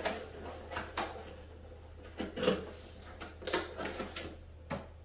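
Handling noises: a few irregular clicks and knocks with light rustling as hands work on a radio-controlled car, fitting the battery and setting the car up.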